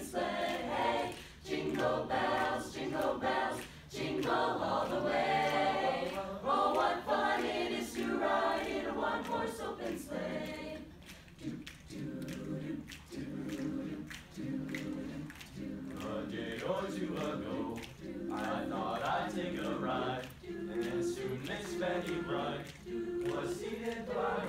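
A cappella choir of mixed teenage voices singing a close-harmony arrangement without accompaniment. About eleven seconds in the upper voices drop out and the low voices sing short chords in an even rhythm, and the full group returns a few seconds later.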